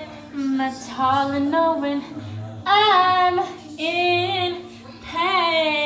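Young women singing a playful made-up line without accompaniment, the voices holding and bending notes in short phrases, loudest about three seconds in.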